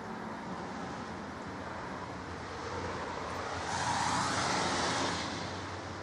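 A vehicle passing on the wet road, its tyre hiss swelling a little over halfway through and fading again a second or so later, over a steady low background hiss.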